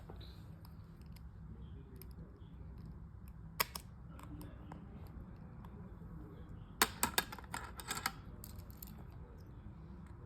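Small metal tools clicking and tapping against an iPhone while its stubborn tiny screws are worked at with a precision screwdriver: a couple of clicks, then a quick run of about six near the end, over a steady low hum.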